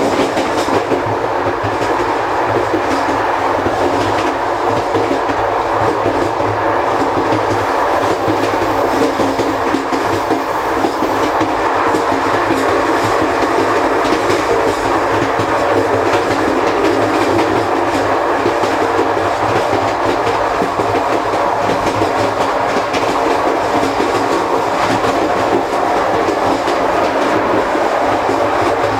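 CP Corail Intercidades passenger coaches running at speed, heard from inside the gangway bellows between two coaches: a loud, steady rumble and rattle with fine irregular clicks from the running gear.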